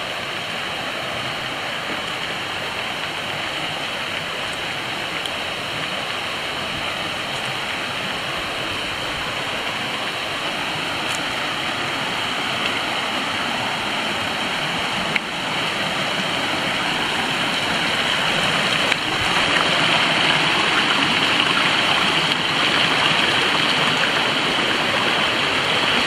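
Shallow creek running over rocks and small rapids: a steady rushing of water that grows gradually louder, stepping up a little about fifteen seconds in and again near nineteen.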